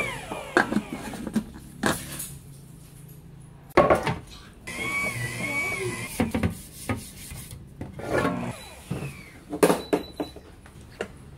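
Cookware being handled: a run of separate knocks and clatters, the loudest about four seconds in and near the end, with quieter rubbing and scraping between them.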